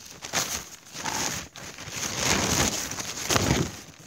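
Rustling and rubbing handling noise in several uneven swells, loudest about two and a half and three and a half seconds in.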